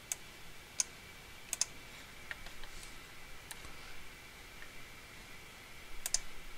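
Clicks of a computer mouse and keyboard: a few sharp single clicks in the first two seconds, lighter scattered tapping in the middle, and a quick double click near the end.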